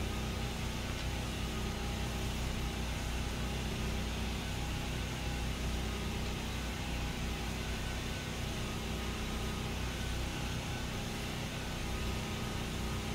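Steady drone of portable generator engines running, a low hum holding several steady tones.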